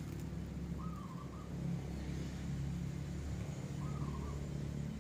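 A steady low mechanical hum, like an engine running, with a short wavering bird call about a second in and again about four seconds in.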